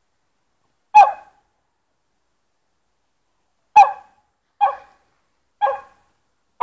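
Small dog barking: five short barks, one about a second in, then four more in quick succession over the last three seconds.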